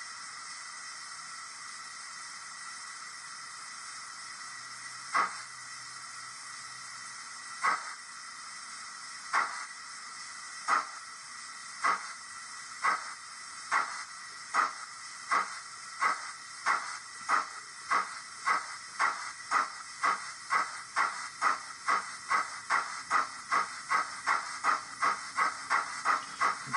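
DCC sound decoder in a Dapol OO gauge Hawthorn Leslie steam tank locomotive model, playing a steady steam hiss and then exhaust chuffs that begin about five seconds in and come faster and faster as the model locomotive picks up speed.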